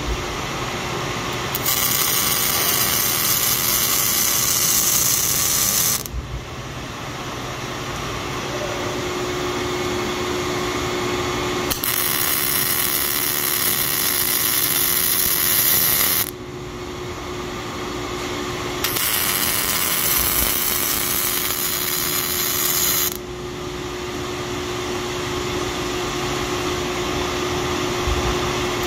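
A robot-held MIG welding torch runs its arc in about three stretches of roughly four seconds each, a loud crackling hiss of spatter. The arc starts about two seconds in, cuts out around six seconds, restarts near twelve and nineteen seconds, and stops for the last six seconds. Between the welds a steady hum continues while the arm repositions.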